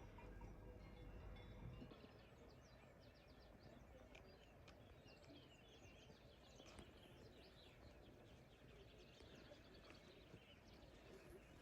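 Faint birdsong: many quick chirps and short trills from small birds over a soft outdoor hiss, starting about two seconds in as a low rumble drops away.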